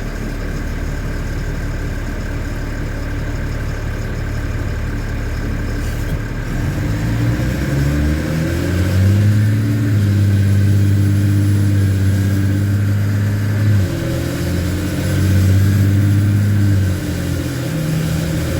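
LMTV military truck's diesel engine running on the road: a steady drone at first, then pulling harder with its pitch climbing about a third of the way in. It holds the higher note for a few seconds, drops off suddenly, then picks up and holds again briefly before easing near the end.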